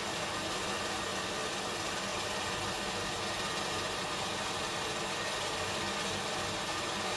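Glassblowing studio furnace equipment running: a steady, even hiss with a faint low hum.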